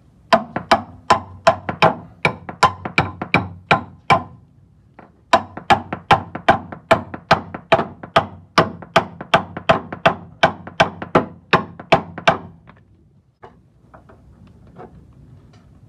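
Hammer blows on a steel front lower control arm, driving it with its polyurethane bushings into the subframe bracket: a fast run of sharp, ringing strikes at about three a second. There is a short pause about four seconds in, and the blows stop a few seconds before the end, leaving faint handling noise.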